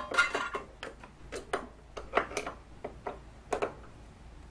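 Adjustable wrench clicking against a cylinder head bolt on a Briggs & Stratton riding mower engine as it is worked on the bolt: a series of irregular, sharp metal clicks.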